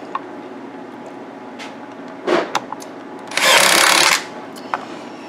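Palm driver running briefly as it drives a mounting screw: a short burst a little over two seconds in, then a steady run of under a second near the middle.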